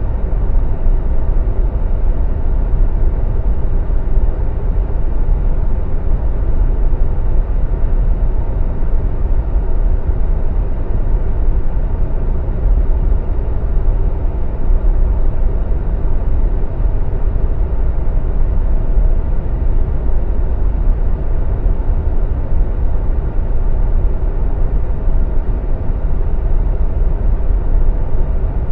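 Boeing 787 Dreamliner taxiing, its twin jet engines at taxi thrust giving a steady low rumble with a faint hum on top.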